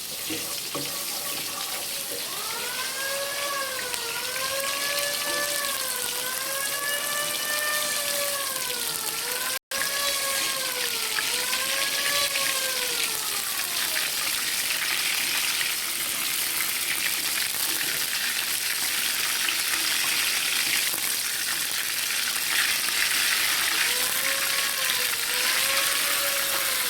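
Food sizzling steadily in a hot pan as it is stir-fried. Over it, a pitched tone rises and falls about every two seconds, like a wailing siren, for about ten seconds starting a couple of seconds in, and again near the end.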